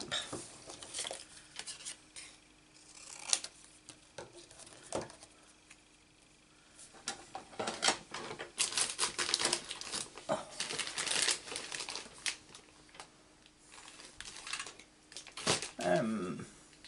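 Small pieces of stamped card stock being trimmed and handled on a craft mat: a run of papery scrapes, rustles and clicks, busiest about halfway through.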